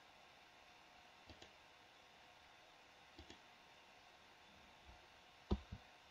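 Computer mouse clicking over faint room tone: three quick double clicks, about a second in, about three seconds in, and a louder pair near the end.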